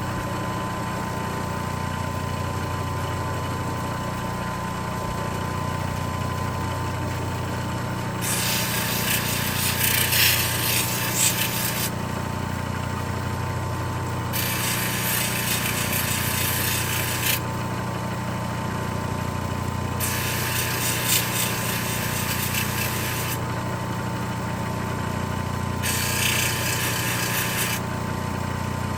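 CabKing 8 cabbing machine running with a steady motor hum. Four times, a small silver ring component is pressed against the turning wet wheel, and each contact adds a few seconds of gritty grinding hiss to flatten and clean its surface for soldering.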